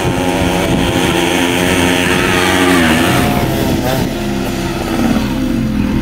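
Small motorcycle engines revving under load as the bikes climb and pass close by. The pitch falls as a bike goes past about three seconds in, and again near the end.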